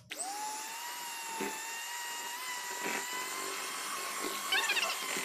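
Electrolux electric hand mixer switched on at its lowest speed: the motor whirs up in pitch over the first half second, then runs with a steady whine as its beaters whisk cake batter. Two brief knocks come through the whine.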